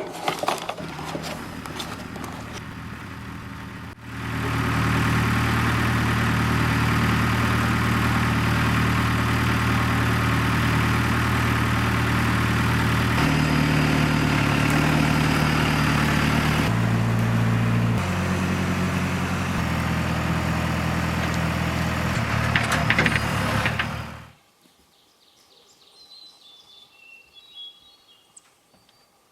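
John Deere tractor's diesel engine running, stepping up louder about four seconds in and shifting its note a few times as it works. It cuts off suddenly near the end, leaving faint bird chirps.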